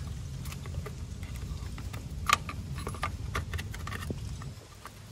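Small clicks and light metallic taps of a replacement intake manifold runner control unit being set into place by hand and its bolts started, with one sharper click about two seconds in.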